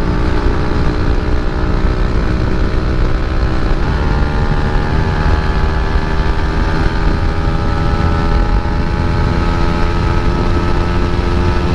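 KTM Duke 250's single-cylinder engine through an Akrapovic aftermarket exhaust, running at a steady cruise, its pitch stepping up slightly about four seconds in, with wind rushing over the microphone.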